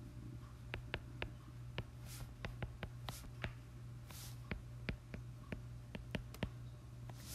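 Stylus tapping and scratching on a tablet's glass screen while handwriting: a string of short, sharp clicks at irregular spacing, a few with a brief hissy stroke, over a steady low hum.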